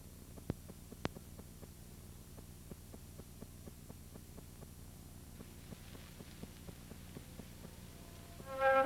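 Low steady hum with faint, evenly spaced ticking, about four ticks a second, and two sharper clicks about half a second and a second in. Flute music comes in at the very end.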